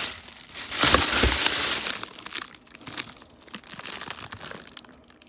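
Packaging of a food order being handled and crinkled, loudest about a second in and then quieter rustling, as a package of beef is taken out.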